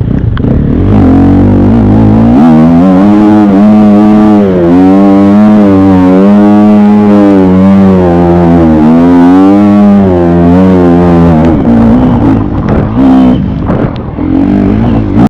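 TM 300 dirt bike engine revved very hard, held high for several seconds with its pitch wavering up and down. Near the end the revving becomes choppier and more broken.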